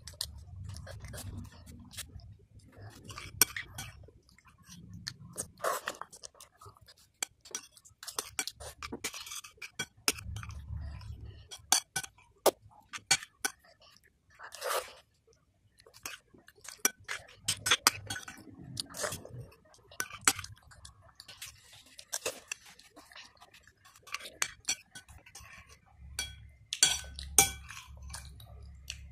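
Metal spoon clinking and scraping against a ceramic bowl of chicken rice porridge, in many short irregular clinks, with a child chewing between spoonfuls.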